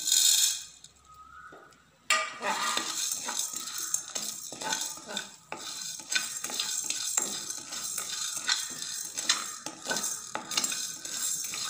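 Whole spices and lentils poured from a steel bowl into a dry kadai with a brief clatter, then, after a short pause, a spatula scraping and stirring them around the pan as they dry-roast, a rapid series of gritty rattling scrapes.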